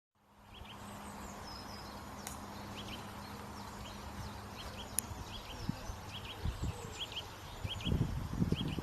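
A small bird calling over and over with short doubled chirps, about once a second, with a few higher sliding notes from another bird early on, over a steady outdoor background. Low rumbling thumps build up over the second half and are the loudest sound by the end.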